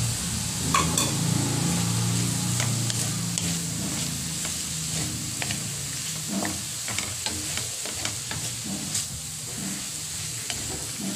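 Wooden spatula stirring flaked milkfish and onions in a frying pan, with irregular scrapes and taps against the pan over the sizzle of the fish frying.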